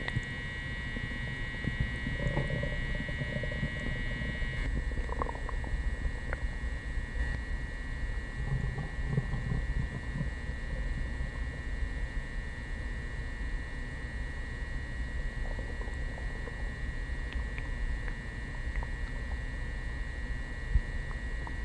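Upset stomach gurgling and rumbling in irregular bubbly churns, heard from in front of the belly rather than with a mic pressed to it; the gut is upset after coffee and prune juice.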